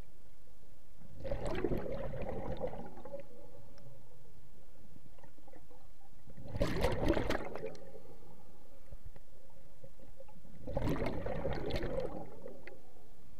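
Scuba regulator exhaust bubbles heard underwater as a diver breathes out: three bubbly exhalations about four to five seconds apart, over a steady faint hum.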